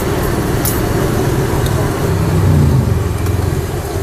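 Steady low rumble of road traffic, with a passing vehicle swelling louder about two seconds in, and a few light ticks.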